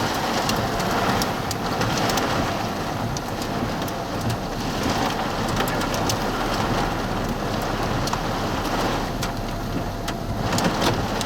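Heavy rain pelting a car, with scattered sharp ticks of small hail among the drops.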